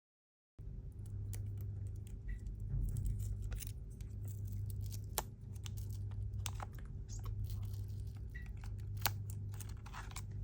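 Light, scattered clicks and taps of small repair tools and phone parts being handled on an iPhone 13, over a steady low hum.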